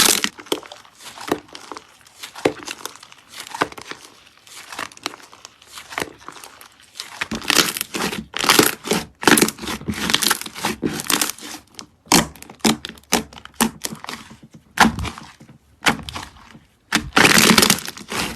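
Slime being squeezed and worked by hand, giving off irregular crackling, popping and crinkling sounds in uneven bursts, with several louder clusters later on.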